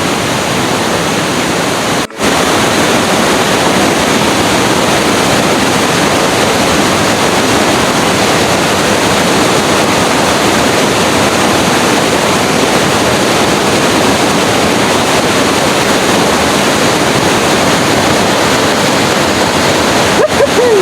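Loud, steady rush of a waterfall heard close up, broken by a momentary dropout about two seconds in.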